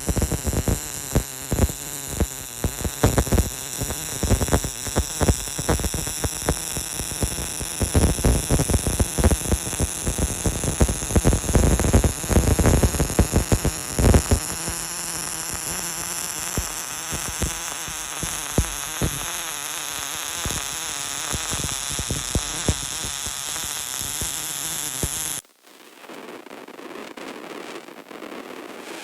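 Bore welder's MIG arc crackling and sputtering as it lays weld inside a worn bore to build it up for line boring, over a steady high-pitched whine. The crackle is dense at first and settles to a steadier hiss, then drops off sharply to a much quieter noise near the end.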